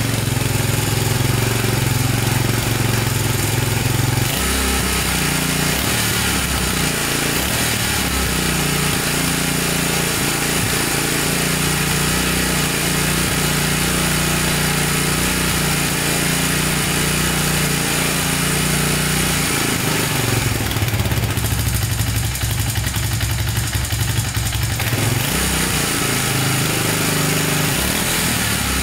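Arctic Cat 300 ATV's single-cylinder four-stroke engine running steadily, sounding good. Its note changes about four seconds in and again between about 20 and 25 seconds.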